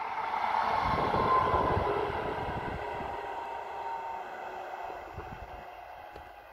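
A 4268-series electric multiple unit passes at speed, its wheels clattering over the rails. It is loudest about a second or two in, then fades steadily as it moves away, with a whine that fades out about four seconds in.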